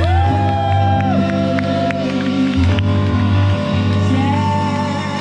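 Band music with a singer: guitar and keyboard chords held under a singing voice.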